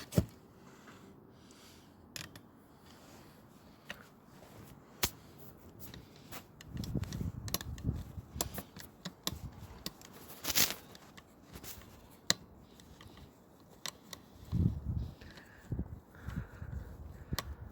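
Plastic parts of a Samsung Xpress M2022 printer being handled and pulled apart: scattered sharp clicks and snaps, with two stretches of low knocking and rubbing.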